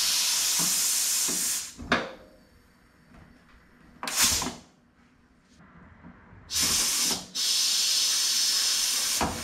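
Compressed air hissing from a hand-held pneumatic tool used on aluminium airplane parts, in three bursts: a long one at the start, a short one about four seconds in, and a longer one in the second half with a brief dip.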